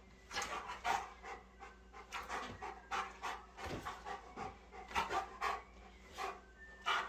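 A young dog panting hard with its mouth open, in quick short breaths about two to three a second, worked up during rough play.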